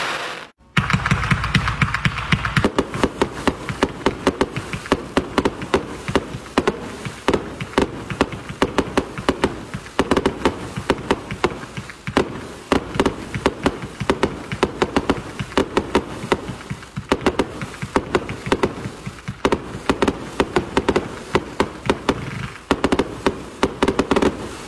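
Multi-shot consumer fireworks cake firing: a dense, rapid run of launch pops and bursting shells with crackle, many reports a second. A brief cut to silence about half a second in, then the firing carries on.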